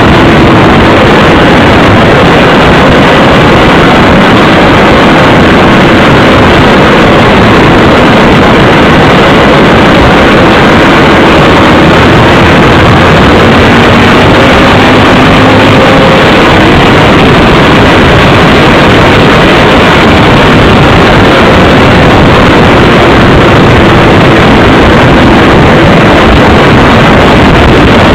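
Onboard sound of a motorcycle riding at speed: a dense, overloaded rush of wind and road noise on the microphone, with the engine's pitch faintly rising and falling underneath.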